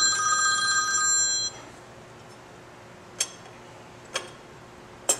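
A telephone rings with a steady electronic tone that stops about a second and a half in. Then three light clicks, about a second apart, as a chrome cheese-wedge cover is fitted over a mesh screen on the motorcycle's engine.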